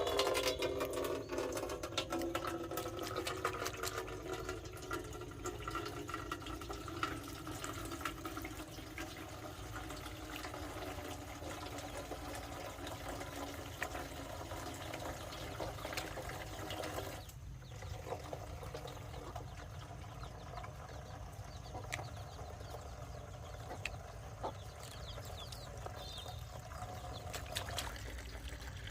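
Water running or splashing, with many small clicks and knocks. A pitched sound sliding down in pitch fades out in the first couple of seconds.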